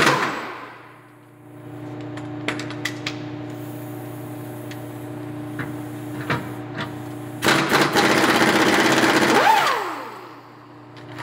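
A handheld power tool runs flat out for about two seconds while working on the truck's rotted exhaust hangers and muffler, then winds down with a falling whine. A few light metallic clicks come earlier, over a steady hum.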